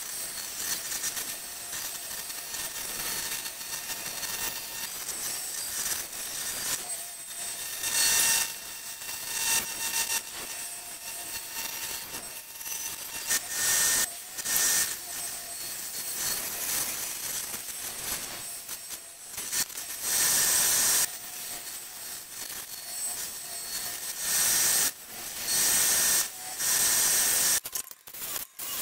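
Bandsaw cutting thin brass sheet: a steady high hiss from the blade in the metal, with louder bursts of about a second each, several times over.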